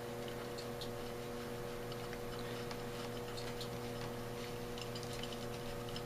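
Steady low electrical hum, with faint scattered light clicks and ticks as fingers thread the needle seat into an Autolite 1100 one-barrel carburetor body.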